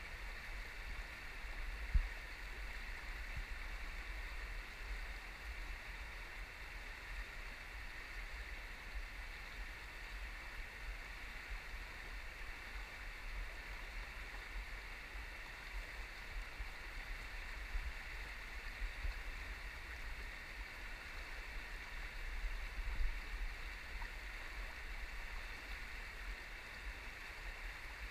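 Shallow river rapids rushing steadily over rocks, with a low rumble on the microphone and a single knock about two seconds in.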